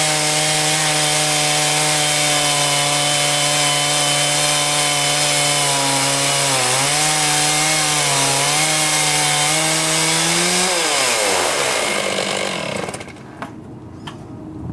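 A portable sawmill's engine and saw running steadily through a cut. The engine dips in pitch twice under load, then winds down and dies away about eleven to thirteen seconds in, leaving a few sharp clicks.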